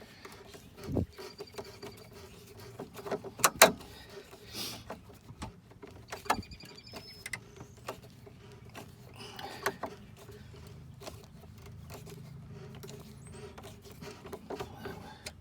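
Screwdriver backing a Phillips-head screw out of plastic dash trim: scattered clicks, scrapes and knocks, with a couple of sharp knocks about three and a half seconds in and short runs of fine ticking.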